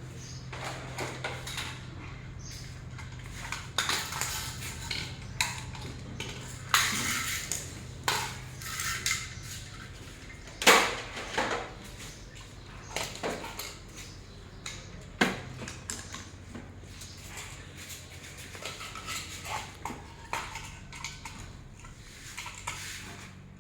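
Irregular clinks and knocks of hard objects being handled and set down, some with a short ringing tail, over a steady low hum.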